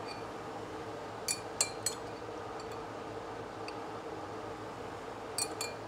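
Metal fork clinking against a glass jar while fishing out red pepper strips: three light clinks about a second and a half in, and two more near the end.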